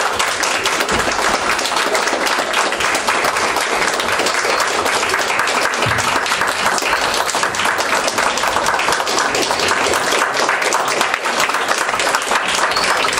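Audience applauding: a dense, steady wash of many hands clapping.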